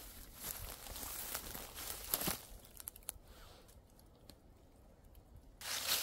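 Crunching, crackling footsteps, busy for the first couple of seconds with a sharp snap, then down to a few faint crackles before picking up again near the end.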